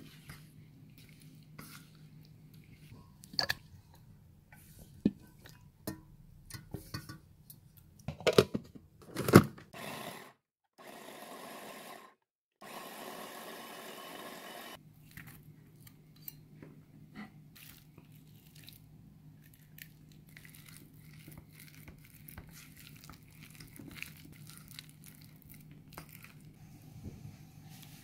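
A silicone spatula scraping and knocking against a stainless steel bowl while raw prawns are mixed with corn flour, with a few louder knocks about eight to nine seconds in. In the middle come a few seconds of steady whirring as a food chopper minces the prawns. Later there are lighter clicks and squelches as the paste is scooped.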